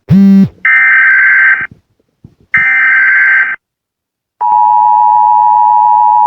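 Emergency Alert System tones announcing a mock special marine warning. A short buzzy blip is followed by two harsh data bursts of about a second each, a second apart: the SAME header. From about four seconds in comes the steady two-tone EAS attention signal.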